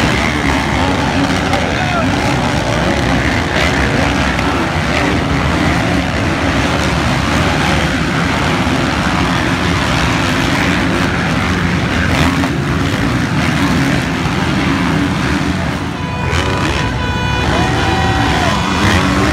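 Several motocross dirt bikes racing on the track, their engines revving up and down through the gears in a steady, loud mix.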